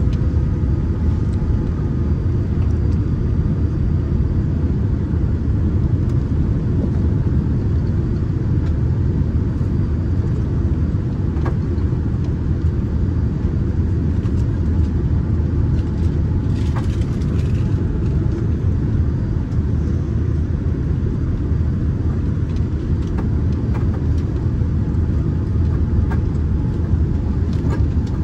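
Steady low rumble of a Boeing 787 airliner on final approach, heard inside the cabin: engine noise and airflow with no let-up.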